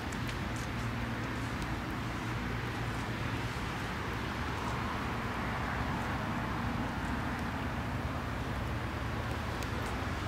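A car engine idling steadily, a low even hum with no revving.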